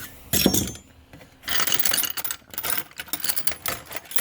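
Metal hand tools clinking and clattering in a toolbox as they are rummaged through: a brief knock about half a second in, then a long run of rapid metallic clicks and jingles.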